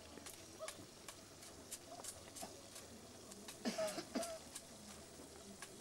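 Faint scattered clicks, with an animal calling twice briefly about two-thirds of the way in.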